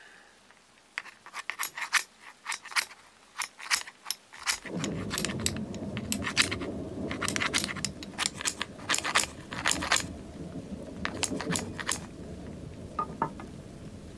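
A quick irregular series of sharp metallic clicks and clinks, like metal pieces being handled and knocked together. A steady low rushing noise starts about four and a half seconds in and continues underneath.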